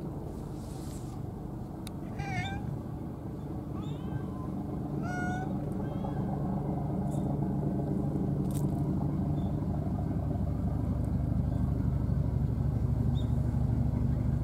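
A cat meowing, about four short meows between about two and six seconds in, over a steady low engine hum that grows louder toward the end.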